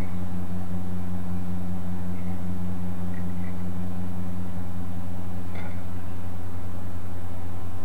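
Steady low hum, even in level throughout, with no speech over it.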